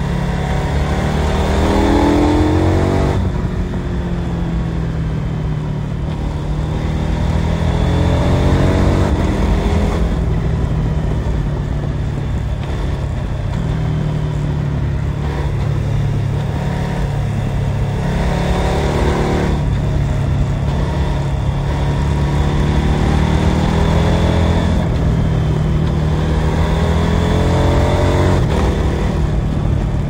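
KTM 1290 Super Adventure S's 1301 cc V-twin engine pulling hard from onboard, rising in pitch through the revs several times and dropping back abruptly at each gear change.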